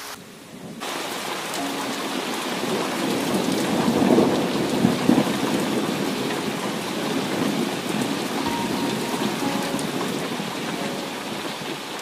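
Heavy rain pouring down onto standing water and vegetation, with a thunder rumble that swells to its loudest about four to five seconds in.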